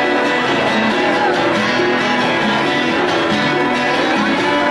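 Live acoustic band music: two acoustic guitars strummed and picked together in a country-style song.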